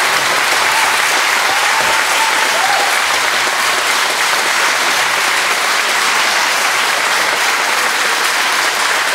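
Audience applauding steadily, a dense, even clapping at the end of a guitar duo performance.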